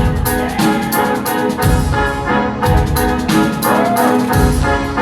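Live band playing an instrumental passage of drums, bass and keyboard sampler, with no vocals.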